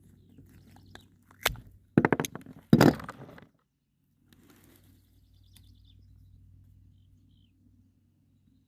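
Handling noises as a spent .40 S&W hollow-point is dug out of a ballistic gel block: a sharp knock about a second and a half in, then a couple of seconds of clicking and scraping that cuts off suddenly. After that only a faint low rumble remains.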